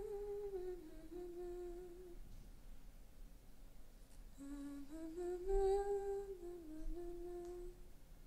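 A voice humming a slow tune in two phrases of a few held, gently falling notes. The first phrase fades out about two seconds in, and the second starts around four and a half seconds in and ends shortly before the end.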